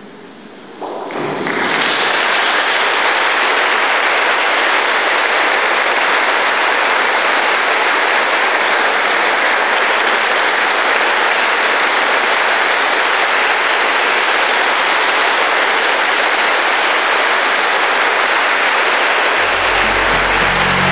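Audience applauding in a large church, a steady, even clapping that starts about a second in. Music comes in under it near the end.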